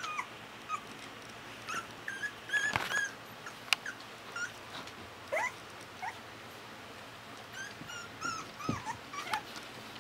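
Miniature American Eskimo puppies whimpering and whining in many short, high-pitched cries, some rising or falling in pitch. A few sharp knocks come in among them.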